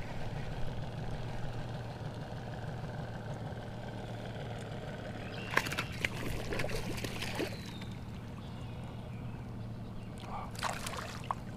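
A hooked largemouth bass splashing at the water's surface beside the kayak as it is brought in. There are two bouts of splashing, about five seconds in and again near the end, over a steady low hum.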